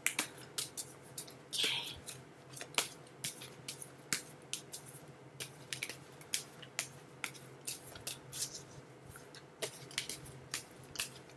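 A deck of oracle cards being shuffled by hand: quick, irregular snaps and clicks of card on card, several a second.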